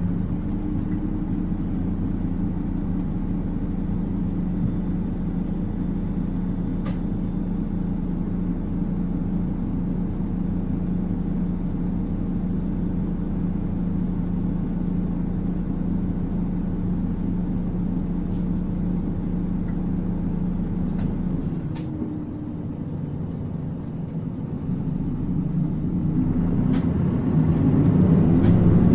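Mitsubishi Fuso PKG-MP35UP city bus's six-cylinder diesel engine, heard from inside the cabin, running steadily under way. Its note eases off past the two-thirds mark, then rises again near the end as the bus accelerates, with a few light rattling clicks.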